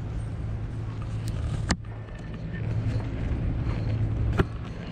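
Airport terminal interior ambience: a steady low hum, broken by two sharp clicks, one just under two seconds in and one near the end.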